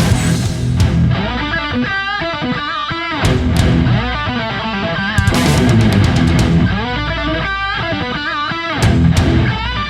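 Background heavy rock music with electric guitar playing over a steady beat.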